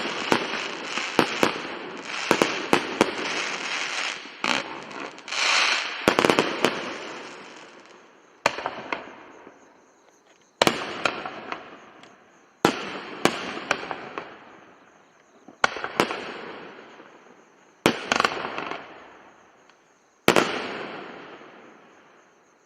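Fireworks exploding: a quick string of bangs for about the first six seconds, then single loud bangs about every two seconds, each trailing off with a fading rumble of small cracks.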